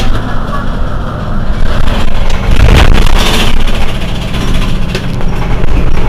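Mercedes-Benz Citaro C2 city bus engine idling steadily at a stop, with a brief louder burst of noise about three seconds in.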